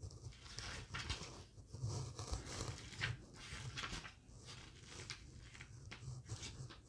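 Pages of a paper instruction booklet being turned and handled: soft, irregular paper rustles and light crinkles.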